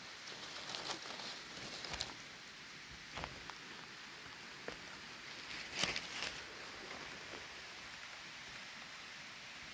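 Dry chestnut leaves rustling and crackling as a hand works through the leaf litter to pick a porcini mushroom, with one sharper, louder crackle about six seconds in.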